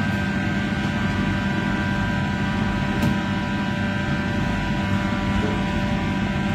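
Steady hum of commercial kitchen ventilation: the extractor hood fan and kitchen machinery running at an even level with a constant low drone and a few steady tones. A faint tick about three seconds in.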